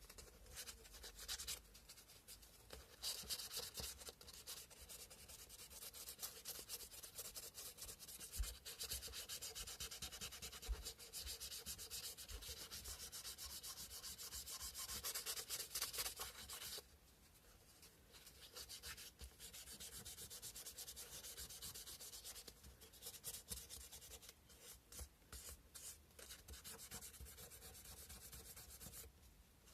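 Sandpaper rubbed by hand over a carved cow-bone fish hook in quick, continuous strokes, a fine dry scratching. It stops for a moment a little past halfway, then resumes.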